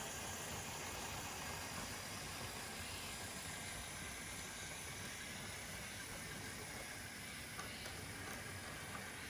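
LEGO model train rolling along plastic track: a steady rumble and hiss of wheels and motors, growing slightly quieter as the locomotives pull away.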